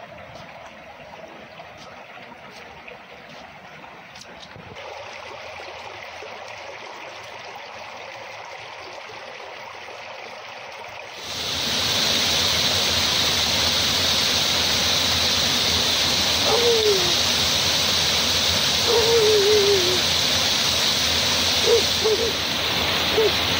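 Muddy storm runoff running along a street gutter, fairly steady. About 11 seconds in it changes abruptly to the much louder, steady rush of floodwater pouring over a drop into a channel. A few short, falling, whistle-like calls come through faintly over the rush.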